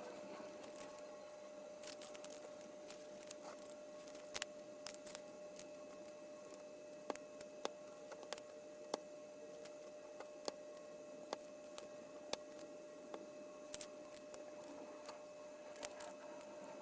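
Scattered sharp clicks of small plastic Lego pieces being handled and pressed together, irregular and about a dozen in all, over a faint steady hum.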